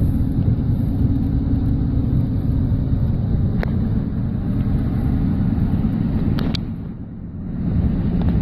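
Steady low rumbling of a car driving in a storm, heard from inside the cabin: road and wind noise, with three sharp taps and a short dip in loudness about seven seconds in.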